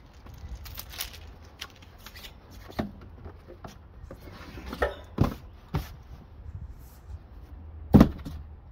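Cardboard packaging rustling and scraping as the box is worked up and off a petrol pressure washer, with several sharp knocks and a loud thump near the end.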